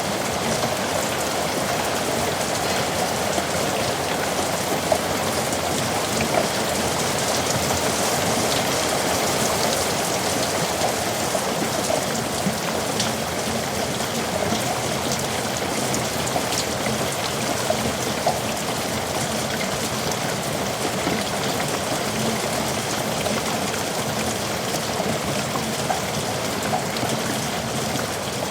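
Heavy rain falling steadily on surfaces in a yard, a continuous hiss of rain with scattered louder drop impacts.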